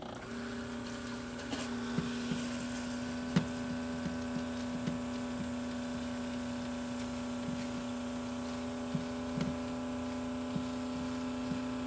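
A silicone spatula stirring scrambled eggs in a skillet, with scattered light taps and scrapes against the pan. Under it a steady electric hum from an appliance runs throughout.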